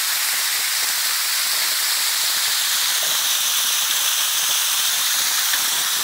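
Waterfall spilling down a stepped rock face: a steady, unbroken hiss of falling and splashing water.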